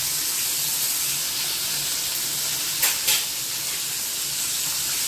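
Bombil (Bombay duck) fish frying in hot oil in a kadai and on a tawa: a steady sizzle. Two short clicks come close together about three seconds in.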